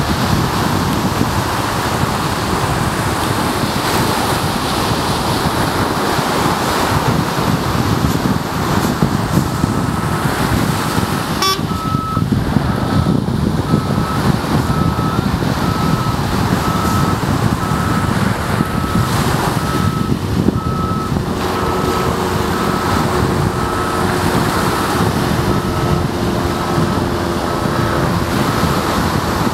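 Heavy diesel earthmoving machinery running steadily, mixed with wind and surf, as a dump truck bogged in wet sand is worked free. About a third of the way in, a reversing alarm starts beeping about once a second and keeps on.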